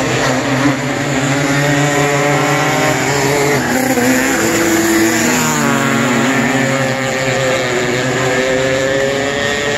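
Several winged micro sprint car engines racing at high revs, the sound steady and loud. One car passes close about four seconds in, its engine pitch sweeping as it goes by.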